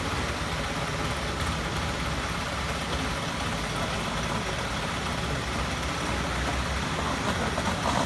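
A machine engine running steadily at idle, an even, continuous noise.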